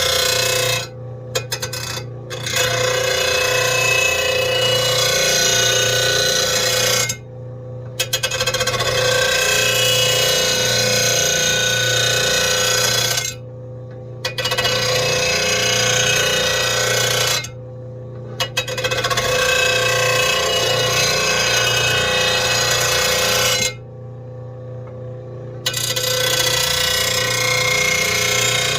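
RBG-712 lawn mower blade sharpener grinding a steel mower blade, in several passes of a few seconds each. Each pass drops briefly to the machine's steady motor hum while the wheel keeps spinning.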